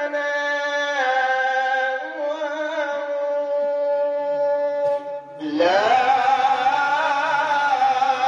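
Men's voices chanting an Islamic devotional samai. A lead male voice holds long notes that change pitch in steps. After a short break about five seconds in, a louder chorus of men's voices comes in.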